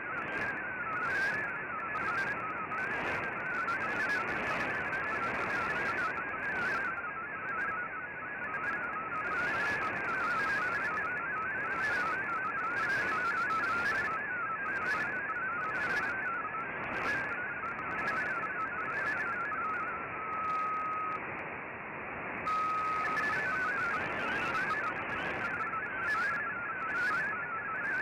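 MFSK32 digital data signal from a shortwave broadcast, heard through an Icom IC-R8600 receiver: a rapid warble of stepping tones over a bed of shortwave hiss. About three quarters of the way through, the warble briefly gives way to two short steady tones.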